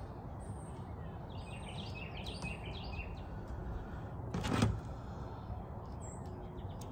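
Outdoor background with birds chirping in short runs, over a steady low rumble of ambient noise. About four and a half seconds in comes a single brief knock, the loudest sound, as sprayer parts are handled on the plastic work bin.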